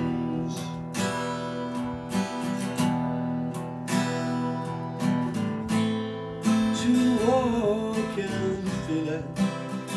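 Aria acoustic guitar strummed in a steady chord pattern, with a man's voice singing a held, wavering note about seven seconds in.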